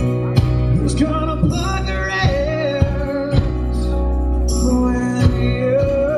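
Live acoustic performance: a man singing held, sliding notes over a strummed acoustic guitar, with a second guitar playing along.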